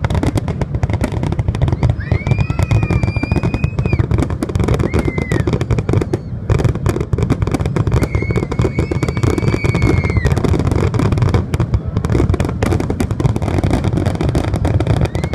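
Aerial firework shells bursting in a rapid, unbroken barrage of bangs and crackles, the dense close-packed explosions of a show's finale. Two long high whistling tones sound over the bangs, around two and eight seconds in.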